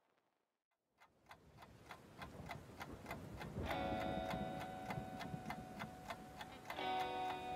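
Background music track starting after about a second of silence with a ticking clock, about three ticks a second. About three and a half seconds in, held pitched tones with many overtones join the ticking, and they sound again near the end.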